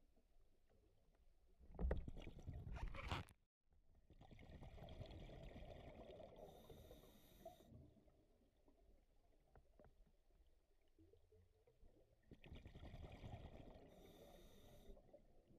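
Scuba breathing through a regulator, muffled through an underwater camera housing: spells of bubbling and hiss, three in all, the loudest about two seconds in. The sound drops out completely for a moment just after it.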